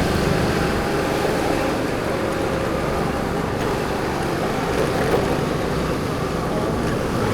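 Steady road traffic noise, an even wash of vehicle sound.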